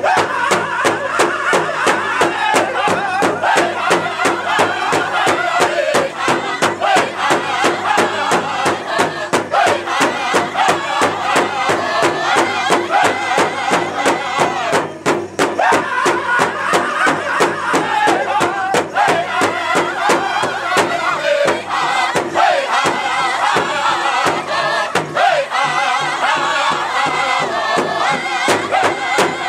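Powwow drum group: several men singing together in a chant while striking one large shared drum in a steady, fast, even beat.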